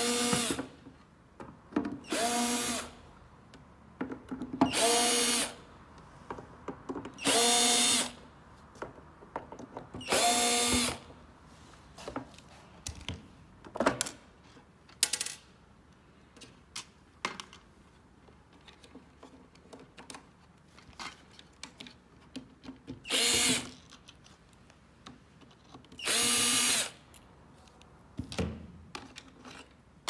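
Cordless drill-driver spinning screws in seven short runs of about a second each, the first five backing the screws out of a plastic electrical box's cover. Scattered clicks and light knocks of the plastic box and parts being handled fill the gaps.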